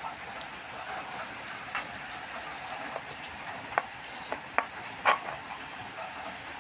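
An aerosol can of WD-40 hissing in short sprays through its straw onto the rusted switch contacts and springs of a flood-soaked electric motor, to free the rust. A few sharp metallic taps are mixed in, the loudest about four to five seconds in.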